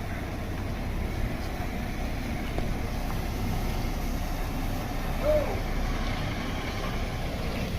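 Steady low rumble of road traffic and vehicle engines, with no horn sounding. A short rising-and-falling note comes about five seconds in.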